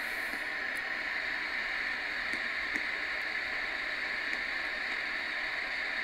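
CB radio receiver tuned to channel 38 lower sideband, its speaker giving steady hissing static with no voice on the channel.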